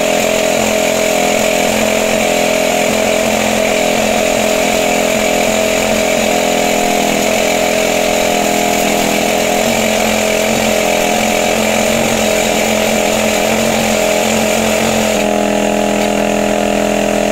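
An excavator-mounted rock drill hammering steadily into the ground over the excavator's running engine. About two seconds before the end the drilling stops, leaving the engine running on its own.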